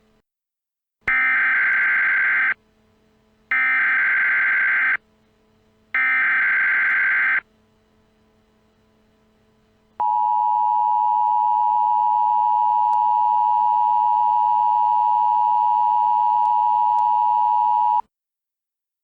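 Emergency Alert System signal. Three short bursts of warbling data tones (the SAME header), each about a second and a half long, are followed after a pause by the steady two-tone attention signal, held for about eight seconds before it cuts off. The signal announces the start of an emergency alert message.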